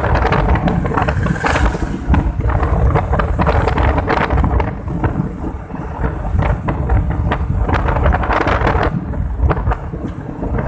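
Wind buffeting the phone's microphone: a loud, uneven rumble with crackles, over a faint steady hum.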